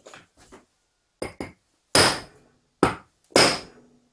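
Hammer blows on a steel drift, driving a seized 203 ball bearing out of a power-steering belt idler roller propped on wooden blocks. A few light taps come first, then five harder strikes, each ringing briefly; the heaviest fall about two and three and a half seconds in.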